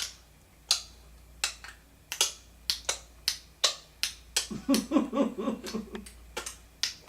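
A series of sharp tongue clicks at uneven intervals, about two a second. Partway through comes a short burst of rapid, fluttering voice sound.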